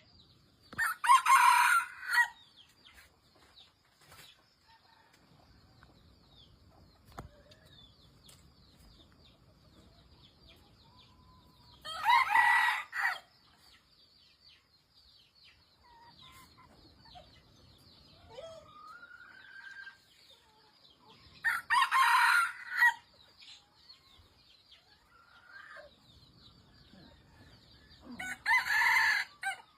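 Red junglefowl rooster crowing four times, each crow short and clipped at about a second long, spaced roughly ten, nine and seven seconds apart.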